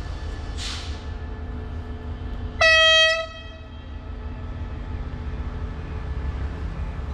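Diesel locomotive air horn giving one short blast of about three-quarters of a second, a few seconds in, over a steady low rumble. A brief hiss comes shortly before it.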